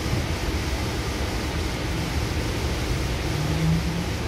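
Cabin noise inside a Goninan K-set double-deck electric train car on the move: a steady low rumble from the running gear with a hiss over it. A short low hum sounds about three and a half seconds in.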